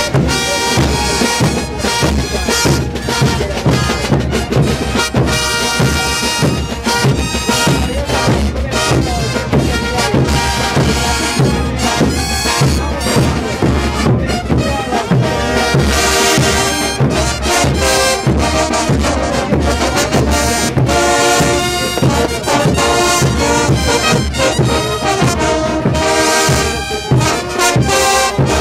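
Large brass band playing a morenada: trumpets, trombones, sousaphones and baritone horns in full chords over bass drums beating a steady rhythm.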